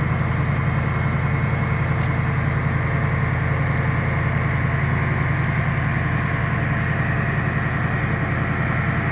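A large engine running steadily, a deep, even drone with a fast, regular pulse.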